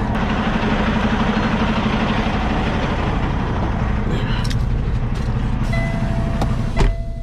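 Semi-truck diesel engine idling steadily under an even hiss, with a few clicks. Near the end a steady electronic beep starts, then a single heavy thump, after which the hiss quietens.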